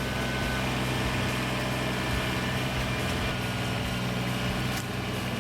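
Engine running steadily at a constant speed, with no revving or load changes.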